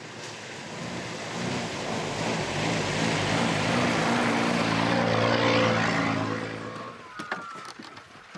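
A motor vehicle's engine passing by, growing louder to a peak and then fading away about seven seconds in. A few light clicks and knocks follow.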